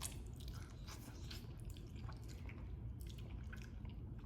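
Wet eating sounds of a bowl of chicken noodles being chewed, faint, with a scatter of small irregular wet clicks.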